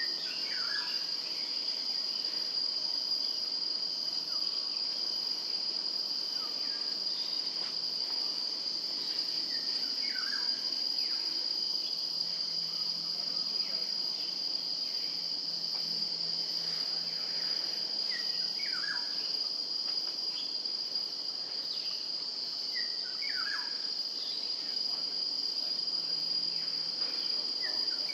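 Insects keeping up a steady, shrill high-pitched drone, with short bird chirps here and there over it.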